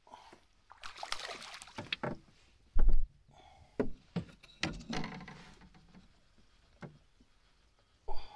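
A northern pike splashing and thrashing at the water's surface beside a small boat as it is reeled in and grabbed, with water sloshing and a few sharp knocks.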